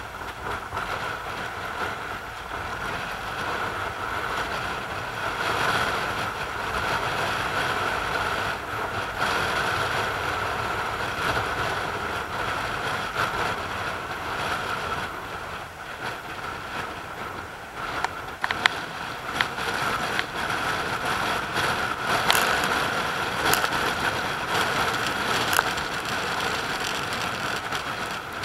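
Sea surf breaking and washing around rocks, a steady rushing noise that swells and eases. Several sharp clicks stand out in the second half.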